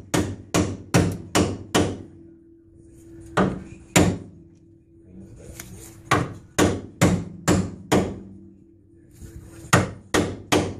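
Hammer blows on the end of a long steel pipe braced against a car's front suspension, metal on metal in quick runs of several strikes with short pauses between, the pipe ringing after each blow: knocking the lower ball joint loose from the steering knuckle.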